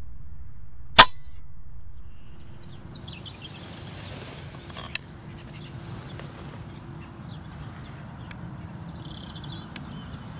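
A single test shot from an FX Crown .22 pre-charged air rifle, fired at a stick about a second in: a sharp crack with a short ringing tail. It is followed by a quieter outdoor background with a faint click a few seconds later and small birds calling near the end.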